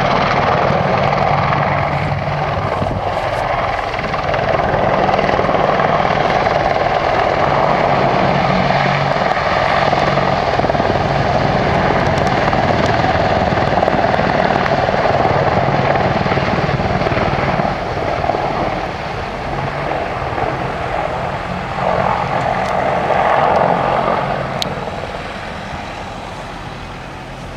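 AH-64 Apache attack helicopter flying past, its rotors beating steadily. The sound dips past the middle, swells briefly again, and fades near the end as it moves off.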